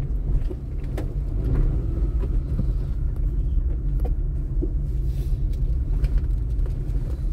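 Car driving slowly over a street of concrete paving blocks, heard from inside the cabin: a steady low rumble of engine and tyres, with a few light clicks and rattles.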